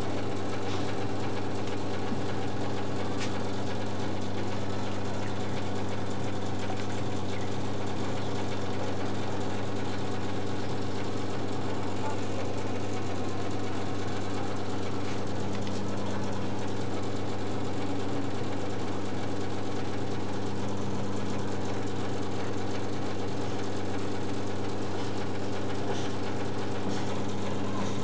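Steady low machine hum over a constant even hiss, with no change in level or pitch.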